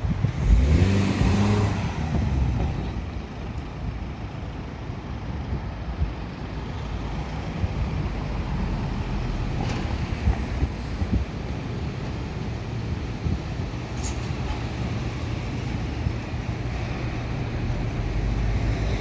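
Heavy diesel engine, most likely the freight line's diesel locomotive, running steadily at a low drone, with a short loud hiss of air and engine noise about half a second in.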